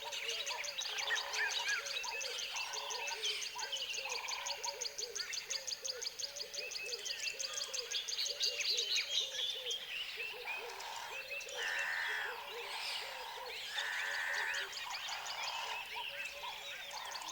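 Tropical forest wildlife ambience: a dense chorus of birds and frogs calling. A fast, high pulsing trill runs underneath and stops about halfway through, and several longer buzzy calls come in later.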